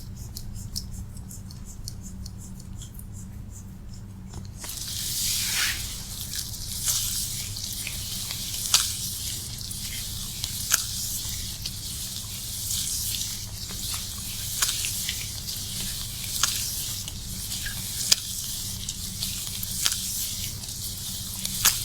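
Water spraying from a hand-held shower head onto wet hair, starting about four and a half seconds in and running steadily, with scattered sharp clicks and drips.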